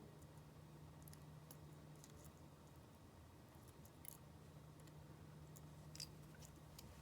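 Near silence with a few faint, sharp clicks of small screws and a screwdriver being handled on an opened iPhone 5, the clearest about six seconds in, over a low steady hum.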